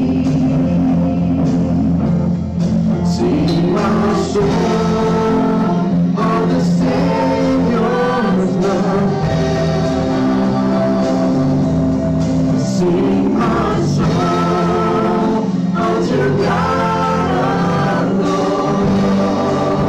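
Live worship band: several voices singing a gospel-style song together over keyboard accompaniment, with long held notes.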